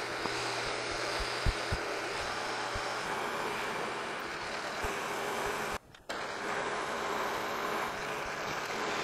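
Milling machine running a roughing end mill through a slot cut, a steady even cutting noise with a few low knocks in the first two seconds. The sound breaks off for a moment about six seconds in.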